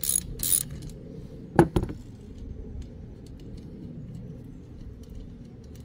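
Ratchet wrench with a 13 mm socket clicking through two last quick strokes as it backs off a nut, then a sharp metallic clink, doubled, about a second and a half in. After that come faint small metal ticks.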